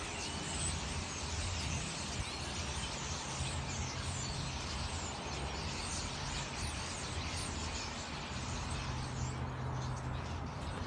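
Many small birds chirping and twittering in a tree, a dense chorus of short high calls that thins out near the end, over a steady low background hum.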